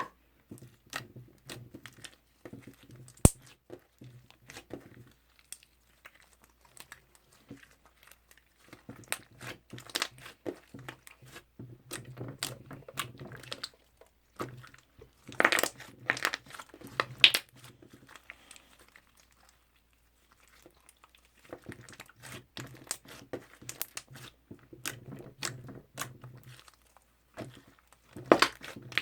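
Toffee slime being stretched, pressed and poked by hand, making sticky clicking and crackling sounds in irregular clusters with short pauses.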